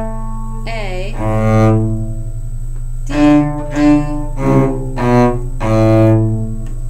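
Cello bowed at a slow practice tempo: a long sustained note, then four short separate notes, then another long note.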